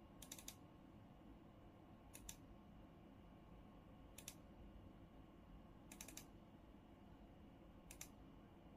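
Faint computer mouse clicks: five short double clicks about two seconds apart, over a quiet steady room hum.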